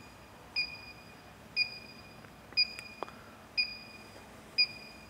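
Handheld electronic combustible gas leak detector beeping at an even rate of about one short high beep a second. The rate does not speed up, the sign that no gas is being picked up at this spot.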